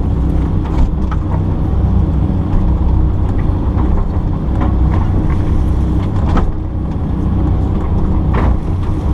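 Kobelco excavator's diesel engine running steadily, with a few short knocks about a second in and again near the end.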